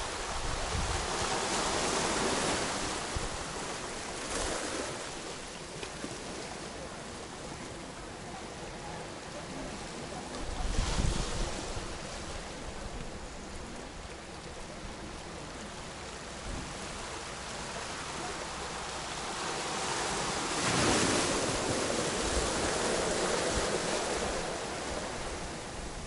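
Small waves washing in on a pebble beach, the wash swelling and falling back several times, loudest a few seconds in, about ten seconds in, and for a stretch near the end.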